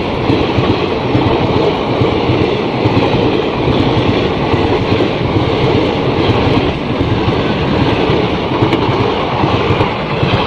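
Indian Railways passenger coaches passing at close range on the adjacent track, heard from the open doorway of another moving train: loud, steady wheel-and-rail noise from both trains running together.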